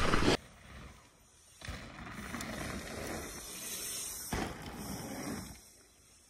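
Mountain bike riding on a dirt trail: loud tyre and wind noise that cuts off suddenly just after the start, then fainter, even riding noise that breaks off again near the end.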